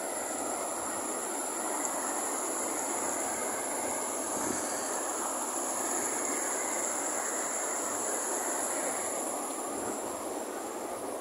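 Steady rush of a river running fast over rock ledges in white-water rapids.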